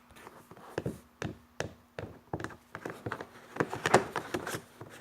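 Hands working a jiggly slime: an uneven run of small sticky clicks and taps, thickest about four seconds in.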